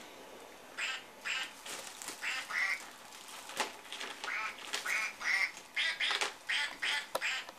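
Plush toy duck quacking: a quick run of about a dozen short quacks, one after another.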